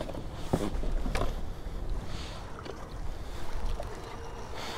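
Water washing against a plastic kayak hull, with wind on the microphone and a few light knocks within the first second and a half.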